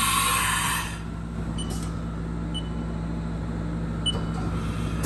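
Haas Super Mini Mill's pneumatic tool changer cycling through a tool change. A loud air hiss cuts off about a second in, leaving a steady machine hum with a few small clicks. Another burst of air hiss starts at the very end.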